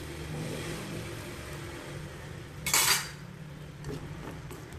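A spoon or spatula stirring snail meat in a pan, scraping and clinking against the pan, with one loud scrape almost three seconds in and a few light clicks near the end, over a steady low hum.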